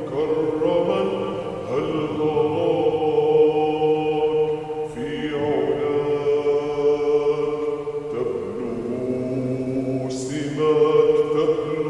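Slowed, reverberant vocal nasheed interlude: layered wordless voices hold long notes, sliding to a new chord every few seconds.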